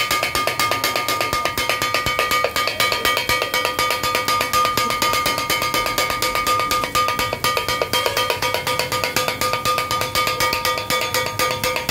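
Rapid, rhythmic clanging of two steel blades chopping kothu parotta on a flat iron griddle, the metal ringing under the fast strokes.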